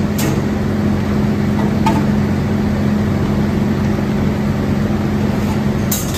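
Steady electric hum of the Cosen C-320GNC bandsaw's hydraulic pump unit running, with a couple of faint clicks.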